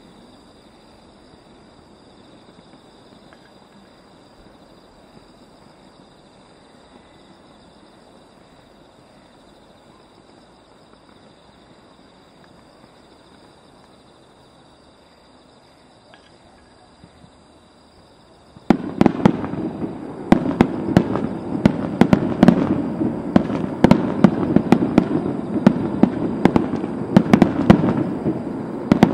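Fireworks display heard from a long way off. After a long quiet stretch with a faint steady high whine, a dense barrage of booms and sharp cracks starts suddenly about two-thirds of the way in and keeps going.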